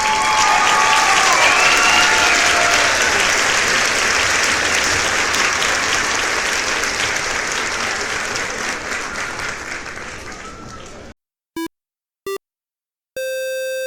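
Crowd applauding and cheering, with a few whistles at the start, slowly fading and then cutting off abruptly about eleven seconds in. Two short electronic beeps follow, then a longer steady buzzing tone near the end.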